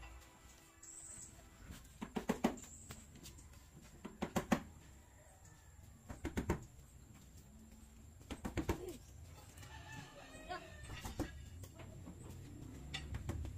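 Sharp knocks on wood in quick clusters of two to four, about every two seconds, from carpentry work. Chickens clucking faintly, most clearly about ten seconds in.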